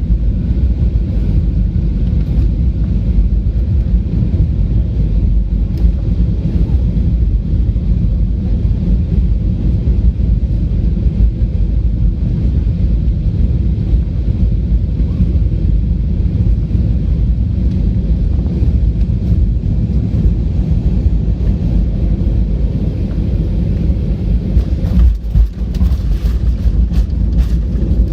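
Inside the cabin of a Boeing 737-800, a loud steady low rumble of engines and airflow during the landing, with a few short clicks near the end.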